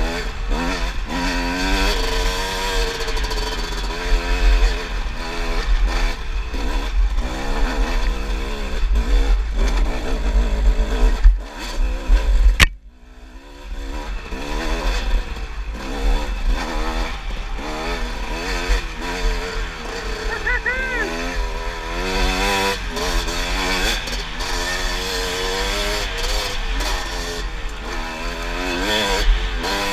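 Kawasaki dirt bike engine running under load on a trail, its pitch rising and falling constantly with the throttle. About halfway through there is a sharp click, then a brief drop in level before the engine sound picks back up.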